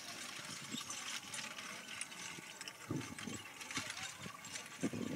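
Horse-drawn driving carriage pulled by a pair of horses on the move: light rattling and clicking from the carriage and harness, with a few dull thuds.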